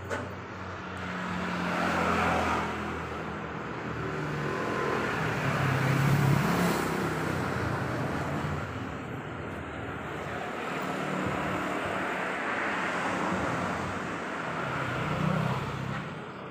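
Road traffic passing: the engines of several vehicles swell and fade in turn, loudest about two, six and fifteen seconds in.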